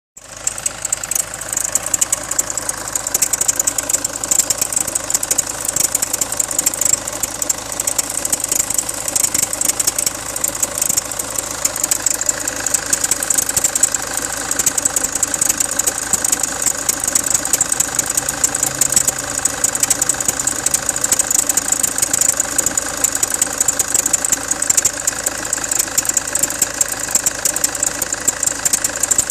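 Land Rover Freelander 2 engine running with a steady, fast clatter. The owner puts the extraneous noise in the area of the power steering and drive shafts.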